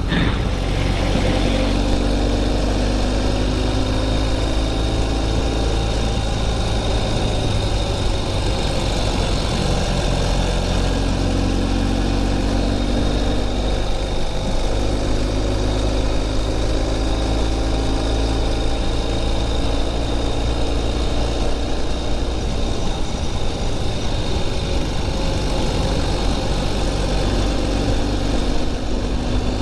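Motorcycle engine running steadily at road speed, with wind noise from riding.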